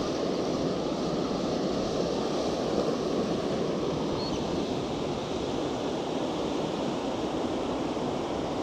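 Steady rush of surf breaking and washing over a sandy beach, with wind on the microphone.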